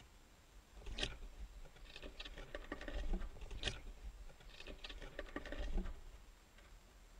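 Little owl scrabbling about inside a wooden nest box: claws clicking and scratching on the boards and rustling the straw nest. A quick, uneven run of clicks and scratches starts about a second in and dies away near the end.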